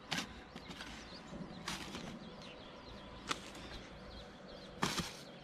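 Hoe blade chopping and scraping into grassy soil while weeds are cleared: four sharp strokes about a second and a half apart, the last one doubled.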